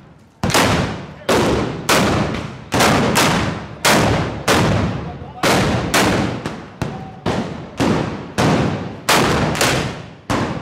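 Black-powder arquebuses firing in a rapid volley. The first loud shot comes about half a second in, then one follows roughly every two-thirds of a second, about fifteen in all, each trailing off in a short echo between the street's buildings.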